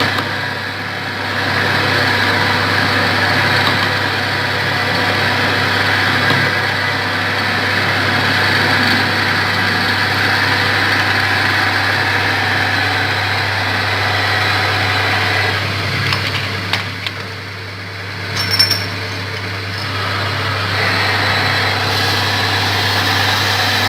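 Lathe running with a steady electric-motor hum and machining noise. It dips briefly about three quarters of the way through, with a few light clicks and a short louder knock.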